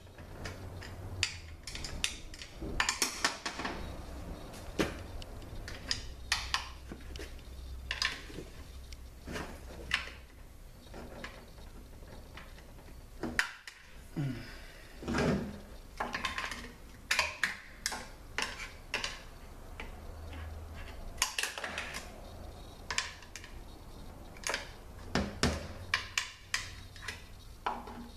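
Hand tools clicking and scraping against metal inside a Toyota A340 automatic transmission case: a pick and pliers working to free a snap ring, with irregular sharp clinks and knocks over a low steady hum.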